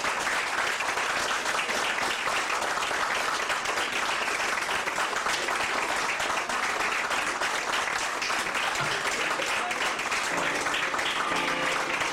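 Audience applauding steadily, with a few voices coming through the clapping near the end.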